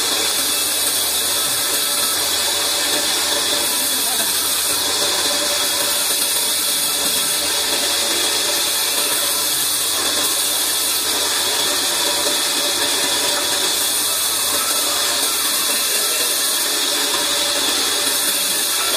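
Large vertical band saw running steadily and cutting through a weathered log pushed along on a rolling carriage, a continuous hiss of blade in wood over the drive's low hum.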